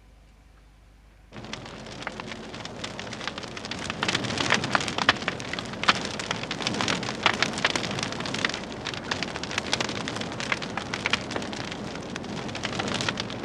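Near silence for about the first second, then a bonfire of rubbish crackling, with a dense run of pops and snaps.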